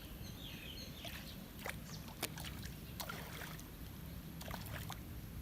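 Small boat on the water: paddle strokes slosh and drip, with occasional knocks against the hull, over a low rumble.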